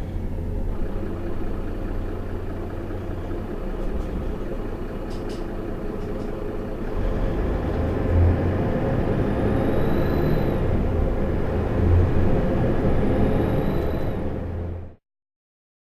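Interior noise of a city bus pulling away from a stop, recorded in the rear seats beside the engine compartment: a steady engine drone and rumble. It grows louder about halfway through, with brief surges, then cuts off suddenly near the end.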